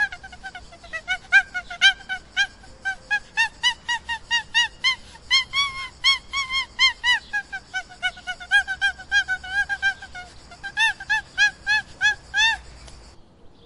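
An animal giving a fast, unbroken series of short honking calls, about three a second, rising a little in pitch midway and then falling again; the calling cuts off abruptly near the end.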